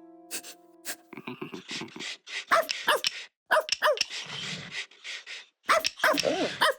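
Cartoon dog character barking and yipping in short bursts, some calls sliding up and down in pitch.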